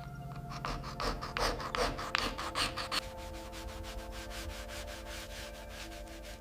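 Hand sanding or abrasive scrubbing of a gun part, in rhythmic back-and-forth strokes. The strokes are harder and slower in the first three seconds, then lighter and quicker at an even pace.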